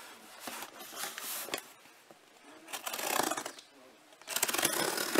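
A blade slitting the packing tape on a cardboard shipping box, in three rough, scratchy passes with short pauses between them.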